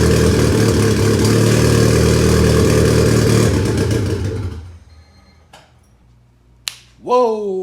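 Honda VTEC car engine running steadily, then dying away about four and a half seconds in. A single sharp click follows in the quiet.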